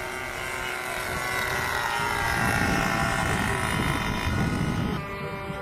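Radio-controlled model aircraft motor running with a high, many-toned whine that slowly falls in pitch, over a rough rushing noise in the middle; about five seconds in the sound changes abruptly to a steadier whine.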